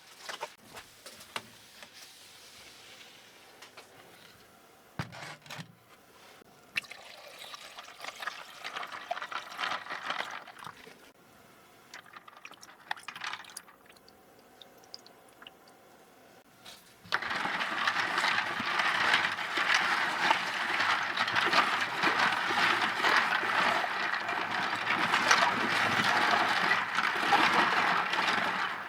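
Scattered light clicks and knocks of handling, then about two-thirds of the way through a tap is turned on and water runs steadily, as in washing keycaps.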